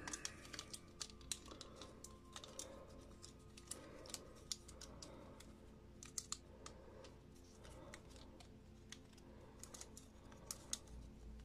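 Faint, scattered clicks and taps of the hard plastic parts of a vintage Dragon Blaster Skeletor action figure and its dragon backpack being handled and fitted back together.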